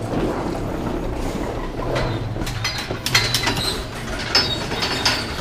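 Moving walkway running with a low hum, then wheeled suitcases rolling onto the hard terminal floor, wheels clicking and clattering along with footsteps, from about two seconds in.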